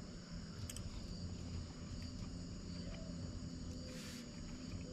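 Steady high-pitched chirring of crickets in the evening background, several thin tones held without a break, over a low steady rumble, with a few faint ticks.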